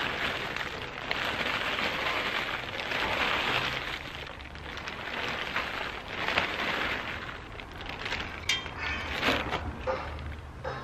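Compost pouring from a plastic sack into a terracotta pot, a gritty hiss with the sack's plastic crinkling. Near the end the pouring gives way to a few sharp crinkles as the sack is handled.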